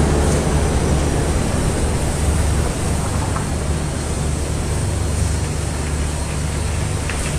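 Barge unloading machinery running with a steady low hum under a continuous rushing hiss of wet gravel and water draining down through the hold. The hum eases slightly about a third of the way in.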